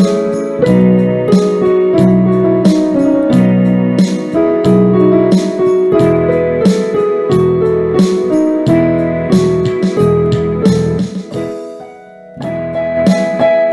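Background instrumental music led by piano or electric piano, with a steady beat and bass line. It fades down briefly about twelve seconds in, then comes back.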